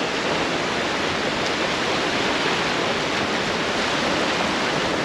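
Steady rush of shallow surf washing in at the water's edge, an even hiss of moving water with no distinct breaks.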